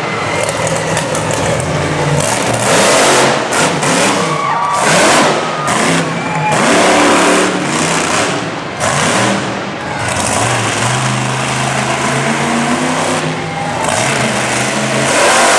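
Monster truck engine revving hard in repeated loud surges, its pitch climbing and falling as the throttle is opened and lifted.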